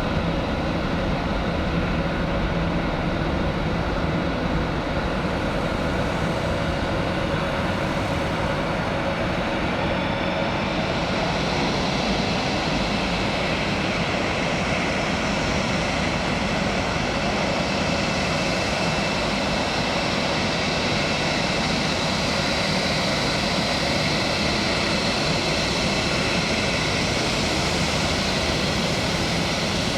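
Jet airliner engines running steadily, with a high whine that grows stronger about a third of the way in.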